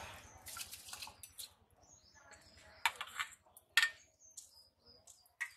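Small birds chirping in short, high notes. Under them come a few sharp knocks and splashes, the loudest about three and four seconds in, as hands squeeze a wet lump over a steel bowl of water.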